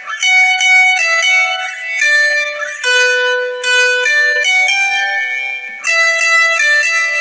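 Instrumental ringtone melody: a high solo line of single notes, one after another in short phrases, with no bass or drums.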